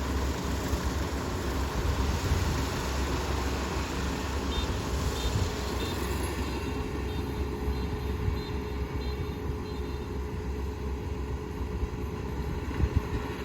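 Kubota ER470 combine harvester running steadily under load as it works the rice, a constant engine hum with mechanical noise. A faint, short, high beep repeats from about a third of the way in.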